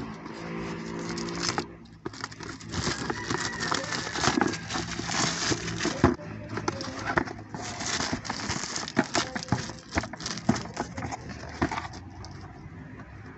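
Cardboard and plastic packaging being handled: irregular rustling and crinkling with frequent sharp clicks and knocks.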